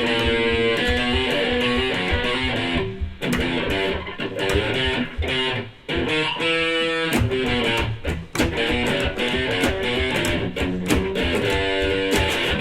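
Live band playing an instrumental break with no singing, guitar to the fore over a steady beat.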